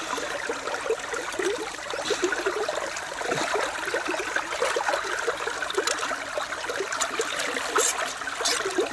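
Water trickling and babbling steadily, like a small stream, with a few sharp clicks near the end.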